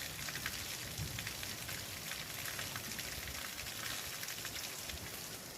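Rain falling steadily: a dense hiss peppered with many small ticks of drops striking surfaces.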